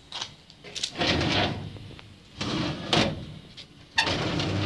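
Rummaging through storage: a series of sliding scrapes and knocks, like drawers or doors being pulled open and pushed shut, about four in a row.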